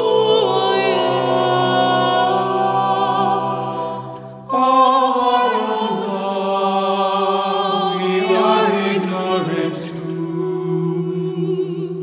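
A mixed choir of men's and women's voices singing long held chords. The voices break off briefly about four seconds in, then come back on a new chord.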